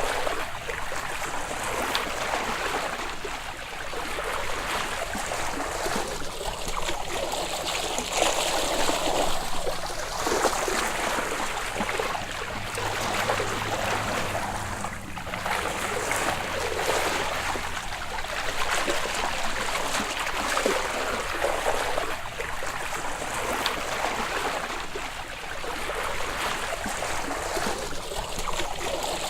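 Open-water surface ambience: seawater sloshing and splashing, swelling and easing every few seconds.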